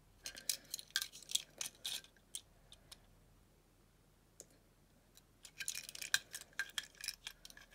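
Die-cast toy cars handled and turned over in the hands: light clicks, taps and scrapes of the metal bodies and plastic wheels against fingers and each other. They come in two flurries, one in the first two seconds and another near the end.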